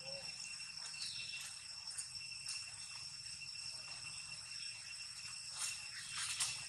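Insects droning steadily at several fixed high pitches, with a few short, louder noises near the end.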